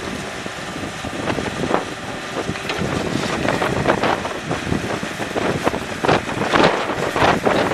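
Yanmar mini excavator's diesel engine running as its bucket digs into sandy soil, with short knocks and scrapes from about three seconds in. Wind buffets the microphone.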